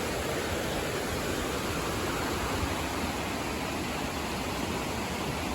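Rushing river water, a steady, even noise with no breaks.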